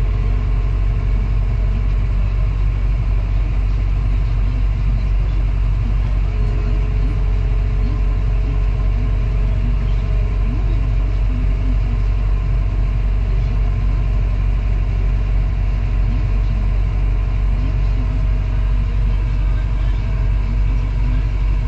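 Diesel engine of a construction machine running steadily at a constant speed, a low drone heard from inside the machine's cab.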